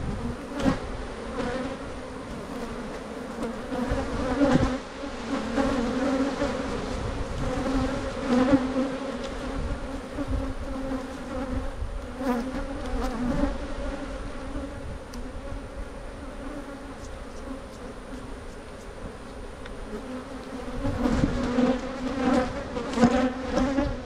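Honeybees buzzing around an open hive in a steady hum.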